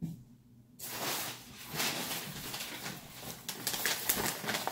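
Plastic grocery bags rustling and crinkling as they are handled and rummaged through, starting about a second in.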